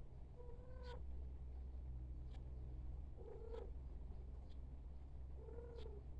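A 1989 View Fan V36R ceiling fan running with a steady low hum. Three short, high mewing squeaks come about two to three seconds apart, with a few faint ticks between them.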